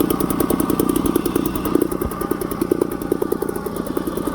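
British Seagull Forty Plus outboard motor, a single-cylinder two-stroke, running steadily at a low, even speed with a fast regular beat of firing pulses.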